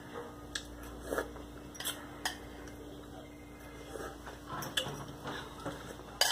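A metal utensil clinking and scraping against a glass bowl of noodle broth in scattered light taps while she eats, over a faint steady hum.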